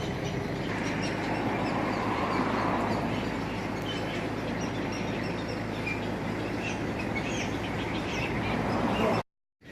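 Birds chirping over a steady, noisy background with a low engine-like hum. The sound cuts off abruptly shortly before the end.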